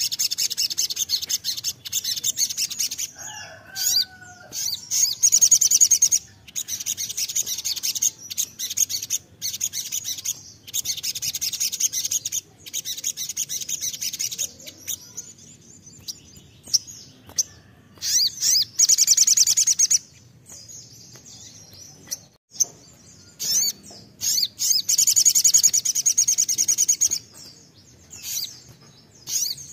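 Male olive-backed sunbird singing: bursts of fast, high-pitched trilling, each one to several seconds long, with short pauses between them.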